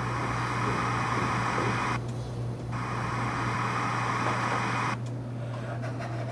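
Static hiss that drops out briefly about two seconds in and stops abruptly about five seconds in, over a steady low hum.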